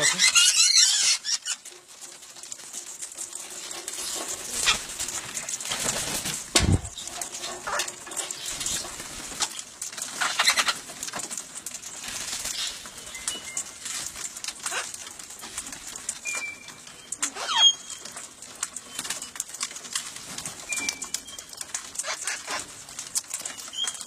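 Wild parrots at a hand-held feeding bowl: a burst of wing flapping in the first second as a bird lands, then scattered rustles and clicks of wings and feet, with a few short high chirps in the second half.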